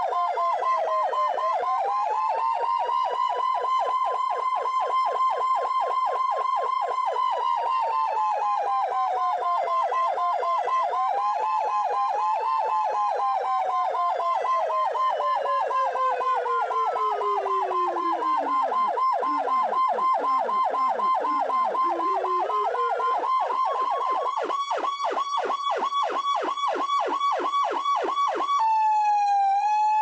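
Two vintage police sirens sounding together: a rapid pulsing tone holding near one pitch, and a wail sweeping up and down that slides far down about two-thirds of the way in before winding back up. Shortly before the end the sound switches to a single steadier siren tone.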